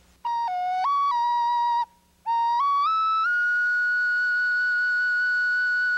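Small turtle flute played as a wood thrush imitation: a short phrase of four held notes stepping down and back up, a brief rest, then a run of notes stepping upward to a long steady high note.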